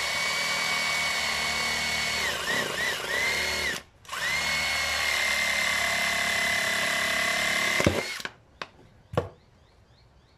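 Cordless drill running at speed, boring through a thin plastic drink bottle. It runs in two long spells with a few quick trigger blips and a short stop about four seconds in. It stops just before eight seconds, and then come one sharp knock and a few faint clicks.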